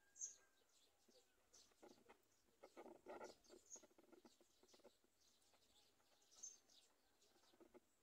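Black-winged kite at its nest giving faint, thin, high-pitched peeps, three short ones a few seconds apart, among soft scratchy ticks, with a brief louder rustle about three seconds in.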